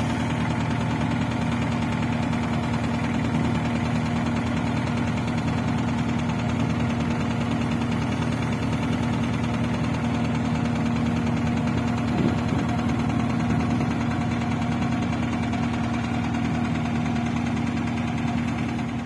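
Hanta F1740C mini asphalt finisher's diesel engine running at a steady speed, heard close up from the operator's platform: an even, unchanging engine hum.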